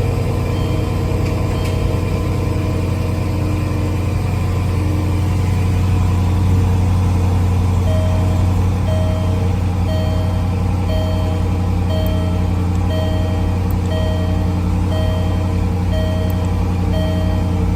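The Range Rover's 5.0-litre supercharged V8 idling steadily just after start-up, with a short electronic warning beep repeating about once a second, louder from about eight seconds in.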